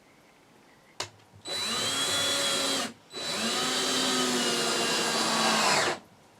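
Power drill running in two bursts, the motor spinning up, holding speed and winding down each time, after a sharp click about a second in.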